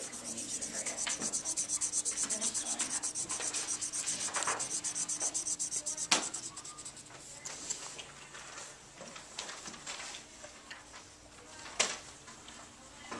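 Rapid back-and-forth scribbling of a marker colouring in a bar graph on paper, a quick even scratching rhythm that fades after about seven seconds. A sharp tap about six seconds in and another near the end.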